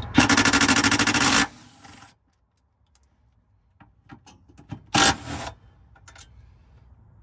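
A socket tool spinning a 14 mm bolt loose: a loud, fast, even rattle for about a second and a half, then a few small clicks of metal handling and a second short burst about five seconds in.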